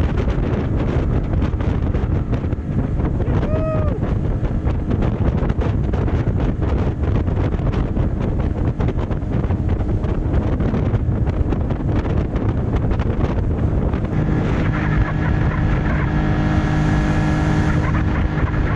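Yamaha 40 outboard motor running at speed with the boat on the plane, mixed with wind buffeting the microphone and water rushing past the hull. From about 14 s in, the engine's steady drone comes through more clearly.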